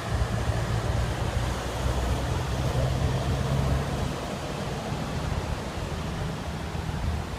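Wind buffeting the microphone as a heavy low rumble over a steady rushing noise, gusting harder in the first half and easing about four seconds in.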